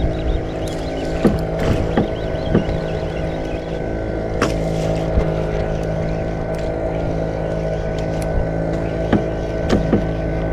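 A small engine aboard a wooden fishing boat running steadily with an even hum, with scattered knocks and clicks on the hull.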